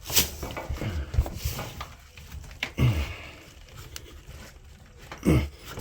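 Irregular knocks, clunks and rustling from hands working a rubber seal and hose off a washing machine's drain pump, with a few louder thumps.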